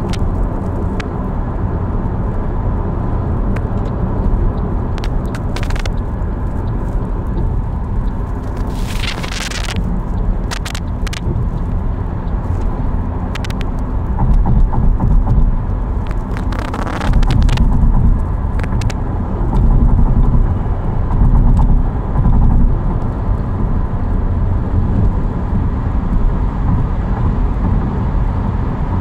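Car driving along: a steady low rumble of engine and tyre noise, with short hissing swells about nine and seventeen seconds in and a few scattered clicks.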